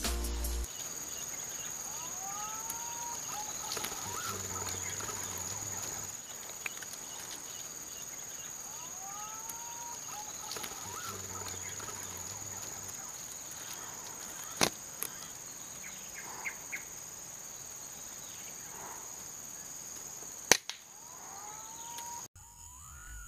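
Forest ambience: a steady high-pitched insect drone, with a bird's whistled call rising then falling, heard three times several seconds apart. A couple of sharp clicks come in the second half.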